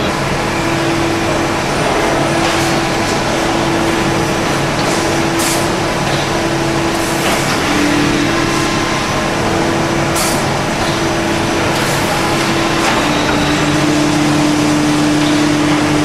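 Production-line machinery running in a CRT shadow-mask plant: a steady mechanical hum, broken every few seconds by short hisses of air.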